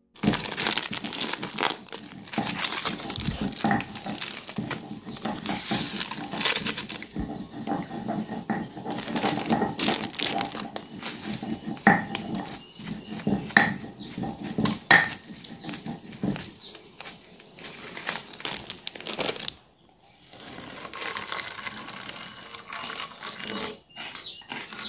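Kitchen handling sounds while preparing pempek dough: repeated clinks and knocks of a stainless steel pot and utensils, with crinkling of plastic seasoning packets. The knocks give way to a softer, even sound for the last few seconds.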